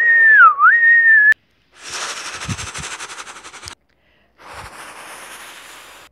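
A person whistling a single high note that dips in pitch and comes back up, in imitation of a steam engine's whistle. It is followed by two stretches of hissing like escaping steam: the first has a quick rhythmic pulse, and the second is fainter.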